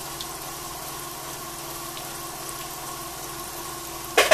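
Kalojam dough balls deep-frying in oil in a metal pan, a soft frying sound under a steady mechanical hum. A single sharp knock near the end.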